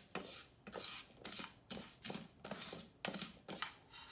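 Plastic slotted spatula scraping and stirring dry breadcrumbs in a nonstick frying pan, at about two strokes a second, as the crumbs are toasted in the dry pan.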